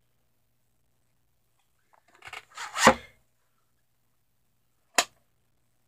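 A VHS cassette and its case being handled: a short run of plastic knocks and rattles about two to three seconds in, then one sharp click about five seconds in.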